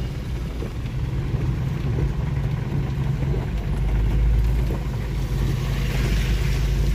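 A vehicle travelling along a rain-soaked road in heavy rain: steady engine and road noise under a hiss of rain, with a deep rumble building from about halfway through.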